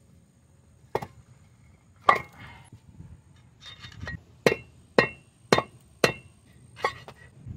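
Hammer striking a metal drift to drive the inner bearing race out of a Ford E-series van's front wheel hub: about eight sharp, ringing metallic hits. There are two single blows first, then a quicker run of blows about half a second apart.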